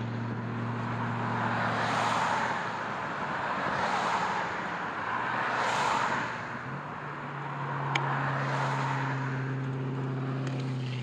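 Cars passing one after another on a multi-lane road: about four swells of tyre and engine noise, roughly two seconds apart, over a steady low hum. There is a brief click about eight seconds in.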